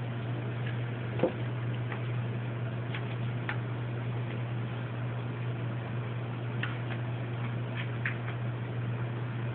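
Scattered light clicks and taps from a cat pawing and rolling against a sisal scratching post on a tile floor, with one sharper knock about a second in, over a steady low hum.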